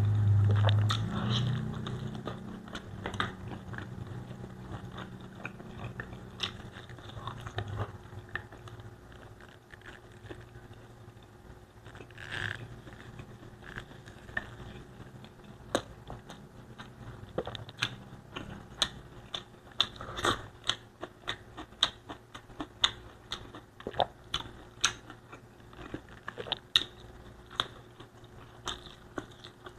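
Close-miked chewing of Bicol Express, pork stewed in spicy coconut milk, eaten with rice: wet mouth clicks and smacks, coming more often in the second half. A low rumble sits under the first few seconds.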